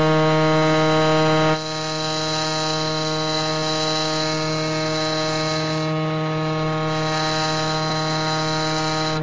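CN Transcona railway shops' steam whistle blowing one long, low, steady note. About a second and a half in it drops a little in loudness, then holds until it stops near the end.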